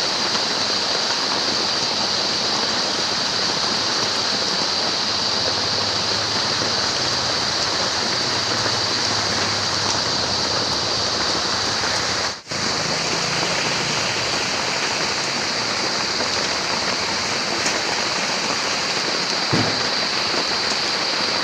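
Steady rain falling, a dense, even hiss of drops. It cuts out for a split second about halfway through, where the recording is spliced, and a single soft knock sounds near the end.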